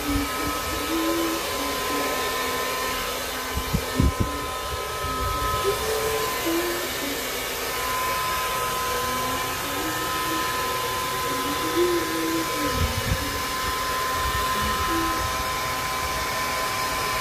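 Handheld hair dryer blowing steadily on wet dreadlocks: a constant rushing hiss with a steady high whine from its motor, and a couple of brief bumps.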